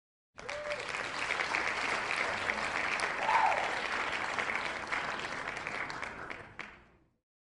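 Recorded applause sound effect from an online spinner wheel, the signal that a winner has been picked. It starts abruptly about half a second in and fades out near the end.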